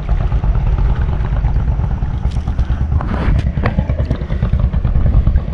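Heavy low rumble of wind buffeting and handling on an action camera's microphone, with scattered knocks and scrapes as the camera is jostled.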